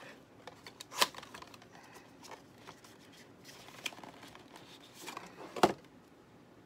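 Hand-handling noises: light rustling and scattered small taps, with two sharp clicks, one about a second in and another near the end.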